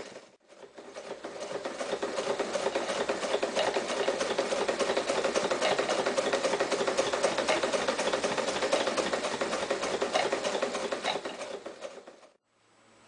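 Mitsubishi MAZ4 electric sewing machine sewing: it stops briefly, starts again and quickly comes up to speed, runs steadily with a fast, even stitching rattle, then stops abruptly near the end.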